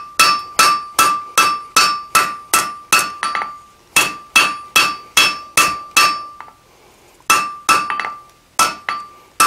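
Hand hammer striking a red-hot steel bar on an anvil in steady blows, about two to three a second, each with a short metallic ring. The blows pause briefly twice and resume. This is light rounding and flattening of the bar's edges at low heat.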